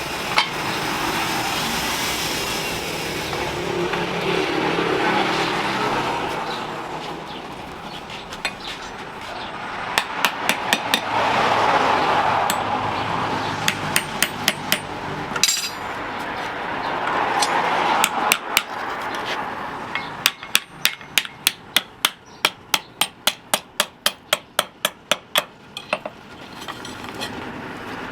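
Hammer blows on metal at the anvil in short runs, then a long even series of about three strikes a second near the end, over a rushing noise that swells and fades.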